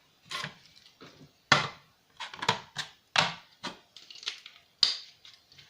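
A quick series of about ten knocks, clinks and scrapes as hard objects are handled and set down on a work surface.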